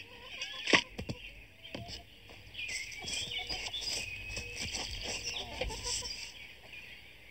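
A single sharp smack less than a second in, as a man is knocked to the ground. Then birds chirp faintly and there is light rustling.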